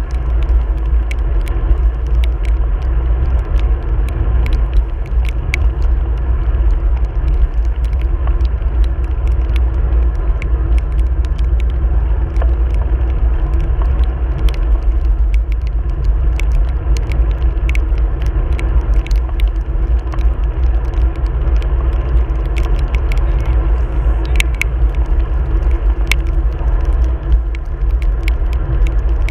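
Steady low wind rumble and road noise from riding in the rain, with scattered sharp ticks throughout.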